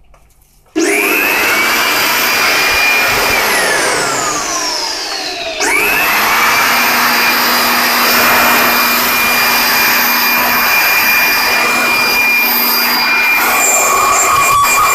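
Electric air blower switched on about a second in, its motor whine rising to full speed and blowing steadily. A couple of seconds later the whine falls away as the motor winds down, then it is switched back on and runs steadily again.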